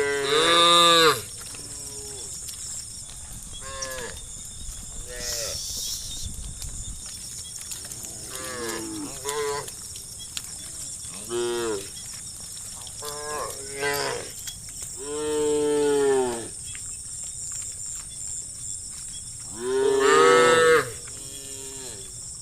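A herd of cows mooing, many separate calls from different animals near and far, each lasting about a second or two, with the loudest moos near the start, about two-thirds of the way through, and near the end. A faint steady high-pitched whine runs underneath.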